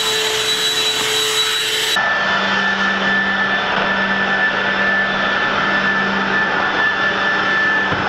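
Black & Decker lithium-ion cordless handheld vacuum running with a steady high whine. About two seconds in, the whine shifts abruptly to a lower pitch and carries on steadily.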